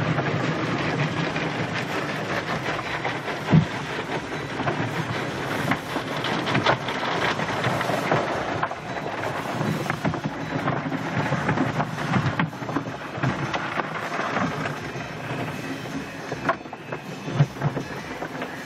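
Automatic car wash heard from inside a Jeep's cabin: water spraying and washing equipment beating on the body and glass in a steady rushing patter, with a couple of sharp thumps.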